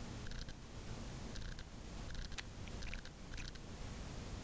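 Domestic cat chattering: short bursts of quick, dry clicks, repeated several times.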